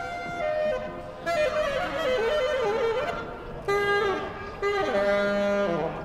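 Music: a melody on a bowed string instrument, its notes wavering and sliding between pitches.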